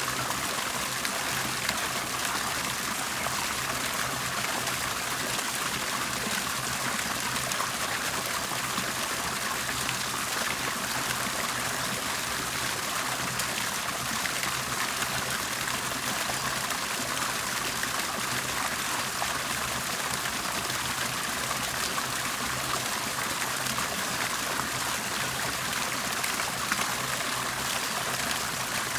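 Water bubbling and trickling steadily, an even, unbroken splashing.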